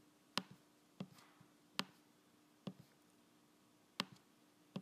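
Computer mouse button clicking: about six short, sharp clicks at uneven intervals of roughly a second, over a faint steady hum.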